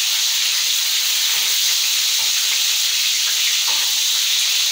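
Marinated chicken pieces sizzling steadily as they brown in hot oil.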